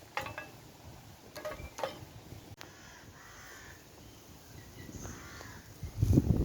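A crow cawing, three short harsh calls in the first two seconds, with a loud low thump of handling near the end.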